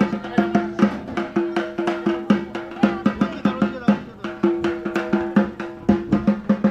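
Drums beaten in a fast, steady rhythm, several sharp strokes a second, with a held pitched tone sounding under the beat in stretches.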